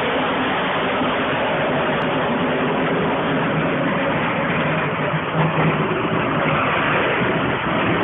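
Road vehicle running under a steady rush of noise, its engine hum swelling briefly about five seconds in.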